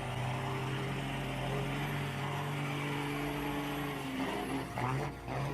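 A motor vehicle's engine running steadily, with some shifting, uneven sound in the last second.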